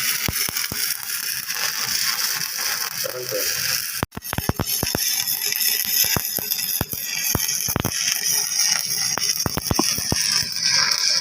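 Stick-welding (SMAW) arc crackling and frying steadily as a fill pass is laid with a 3.15 mm electrode, with sharp pops throughout. The sound cuts out for an instant about four seconds in.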